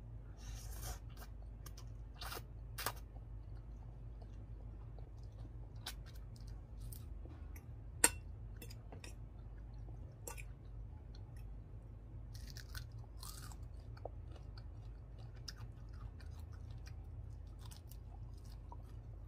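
Close-up chewing of ramen noodles, with scattered small mouth and cutlery clicks. One sharp click about eight seconds in is the loudest sound.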